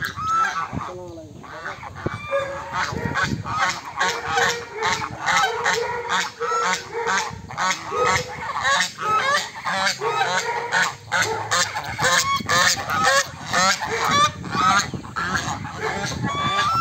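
A flock of domestic swan geese (Chinese geese) honking without pause, many short calls overlapping one another.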